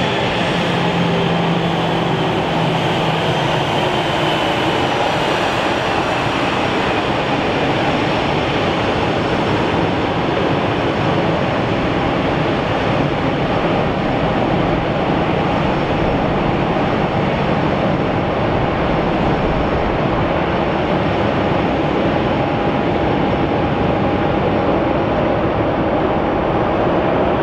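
Airbus A320-214's CFM56 turbofan engines running at taxi power: a steady jet rumble and hiss, with a faint high whine that falls in pitch over the first few seconds.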